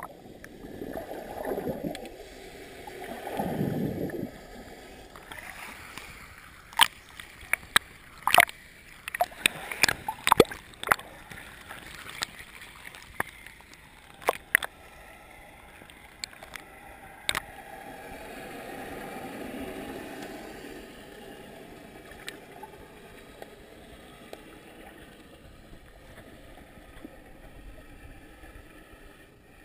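Muffled sloshing and gurgling of shallow sea water around a GoPro in its waterproof housing, held at and just below the surface, with slow swells of water noise. A run of sharp clicks and taps comes in the middle.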